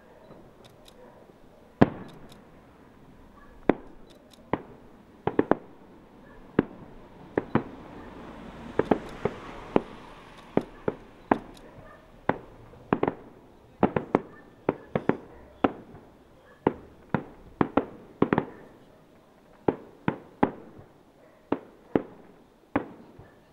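Aerial fireworks shells bursting: a long run of sharp, separate bangs, a second or two apart at first, coming faster and in quick pairs through the middle, then spacing out again near the end. A crackling hiss swells up about halfway through.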